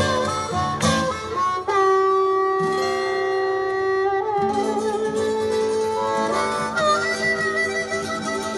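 Blues harmonica playing long held notes over a strummed acoustic guitar in the instrumental ending of a slow blues song.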